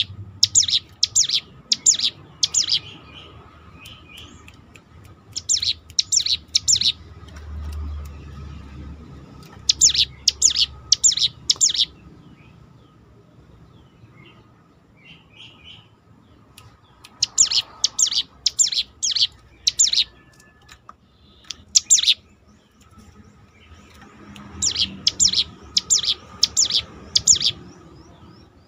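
Ciblek gunung (a prinia) singing: quick bursts of four to six sharp, loud repeated notes, one group every few seconds.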